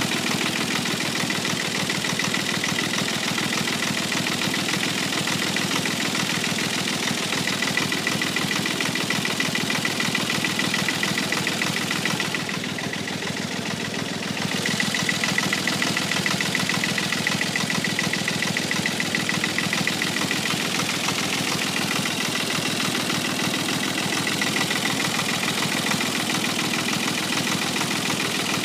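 Tractor engine running steadily, with a thin high whine over it. It drops briefly in level about halfway through.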